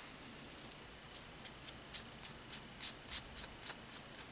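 Fingertip rubbing lightly over a stamped brass angel-wing earring to work Gilders Paste onto its raised pattern. The rubbing is soft, in short, even strokes about three or four a second, starting about a second in.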